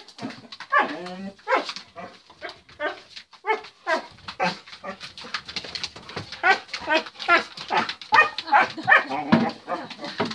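Dog whining and yelping excitedly in a quick run of short calls, several a second, louder in the second half, as it jumps up at a person in greeting.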